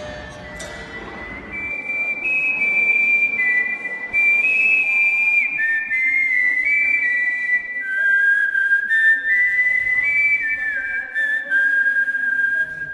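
A slow tune whistled by a person, one clear high note at a time, held notes stepping up and down with the odd short slide.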